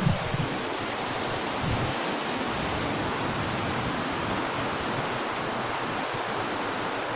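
Steady rushing hiss, like wind or running water, that holds level throughout, with a brief low thump at the very start.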